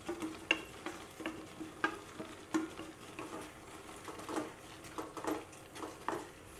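Wooden spatula stirring grated coconut into sticky jaggery-cooked jackfruit in a nonstick pan on the stove, with irregular scrapes and taps against the pan.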